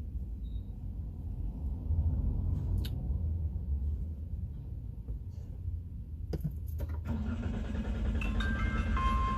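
Low vehicle rumble with a few sharp clicks; about seven seconds in, a steady hum starts, with higher steady tones joining near the end.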